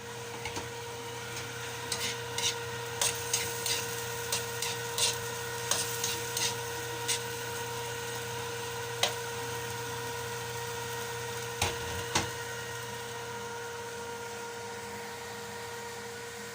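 Irregular light knocks and clatter over a steady electrical hum. About a dozen knocks fall in the first seven seconds, then one more and a close pair near 12 seconds.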